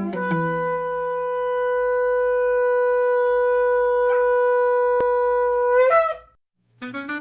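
A shofar blown in one long, steady, held blast of about six seconds, which wavers and breaks off at the end. Keyboard music starts just after it.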